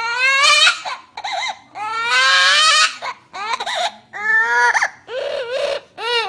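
High-pitched, baby-like crying: a string of wailing cries, each bending up and down in pitch, broken by short catches of breath.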